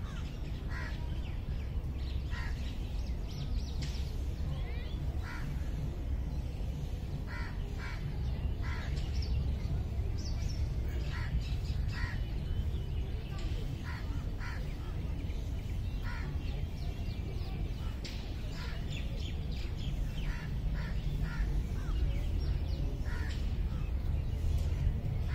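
Crows cawing again and again, short separate calls scattered throughout, over a steady low rumble.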